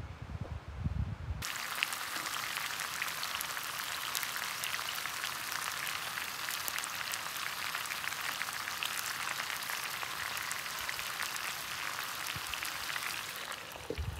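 Lamb ribeye and vegetables sizzling in a frying pan over a fire: a steady crackling sizzle. It begins after a second or so of low wind rumble on the microphone. Near the end, a glass lid is set on the pan with a short knock.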